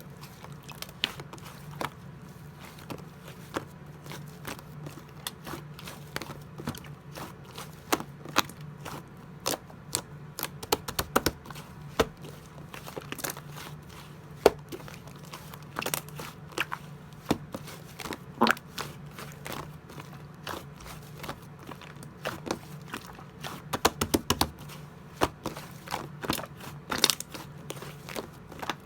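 Clay slime being squished and poked by hand, giving irregular sharp clicks and crackling pops, over a steady low hum.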